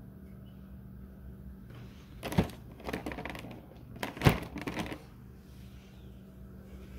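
Thin clear plastic clamshell containers of cookie bars being handled, crackling and clicking in two spells of about a second each, the second starting about two seconds after the first.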